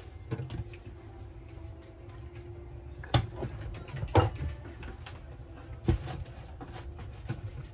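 Kitchen cookware clatter: a series of sharp knocks and clicks, three louder ones in the middle, over a steady low hum.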